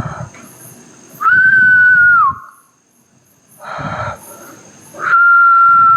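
Two loud, steady whistled notes held at one pitch. The first lasts about a second and drops slightly at its end; the second begins near the end and is held longer. A short burst of rustling noise comes before each note.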